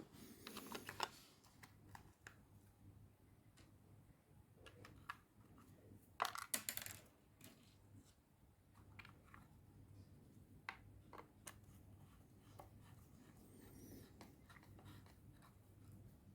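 Faint, scattered clicks and taps of small parts being handled, with a brief cluster of louder clicks about six seconds in.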